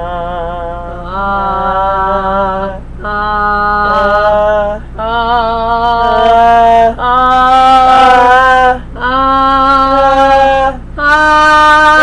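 A man and a woman singing a series of held vowel notes, each about two seconds long with a short breath between them, climbing step by step in pitch to see who can reach the highest note.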